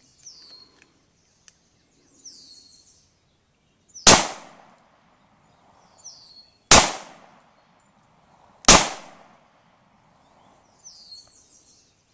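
Three semi-automatic pistol shots, the first about four seconds in and the others roughly two and a half and two seconds after it, each a sharp crack with a short decaying tail. Faint high chirps sound in the gaps between shots.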